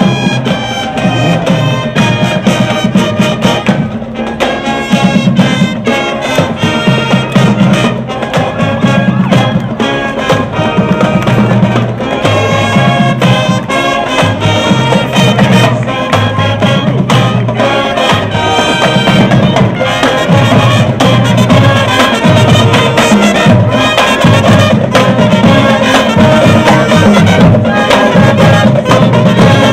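High school marching band playing a brass tune with drums keeping a steady beat.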